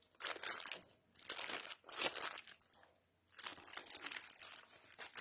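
Packaging for piston rings crinkling as it is handled and opened, in irregular rustling bursts with short pauses about a second and three seconds in.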